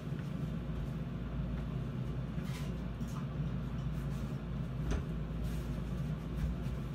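Steady low hum of room background noise, with a faint knock about two and a half seconds in and another about five seconds in.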